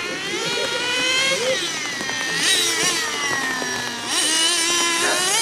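Several 1/10-scale nitro RC cars' small two-stroke glow engines running at high revs, their pitch rising and falling as the cars accelerate and brake through the corners. The sound is loudest as cars pass close, about two and a half seconds in and again from about four seconds on.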